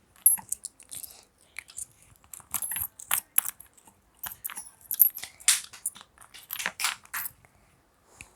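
Coins being dropped one by one into a toy coin bank, a run of sharp, irregular clinks and rattles.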